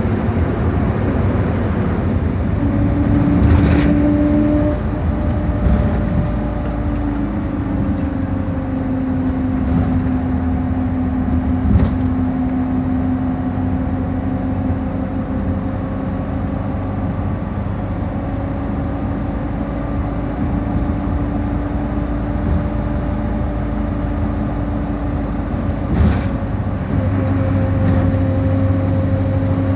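Bus engine and road noise heard from inside a moving bus: a steady rumble with a hum that shifts up and down in pitch a few times, and an occasional sharp knock or rattle from the body.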